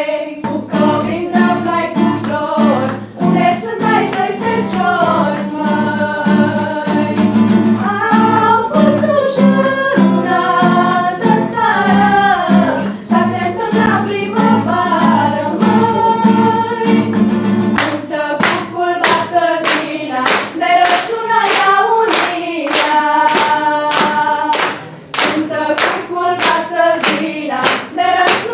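A group of girls singing a lively Romanian song together, with an acoustic guitar strumming along and hand clapping on the beat. About two-thirds of the way through, the clapping becomes steadier and more prominent.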